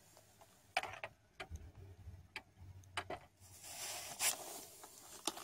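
Irregular clicks and knocks from fishing tackle being handled while a fish is brought in, with a short rustling noise about two-thirds of the way through.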